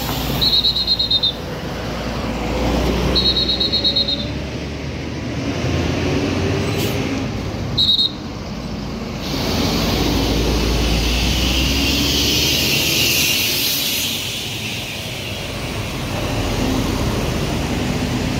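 Large coach buses driving past one after another, engine rumbling, with a rushing hiss that swells as a bus passes close about halfway through. Three short, shrill, warbling toots cut through: two of about a second each near the start, and a brief one about eight seconds in.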